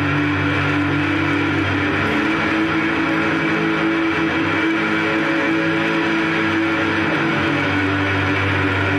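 Solo electric guitar played through an amp and effects pedals: rapid picking builds a dense, droning wash of sustained notes. The low note shifts about two seconds in and again near the end.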